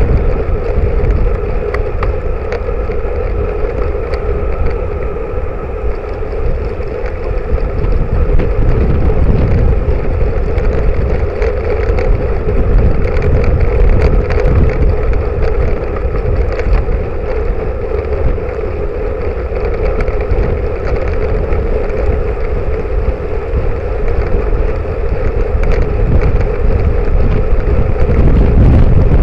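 Wind buffeting the microphone of a bike-mounted camera on a moving road bike, with a steady rumble of tyres on tarmac beneath it.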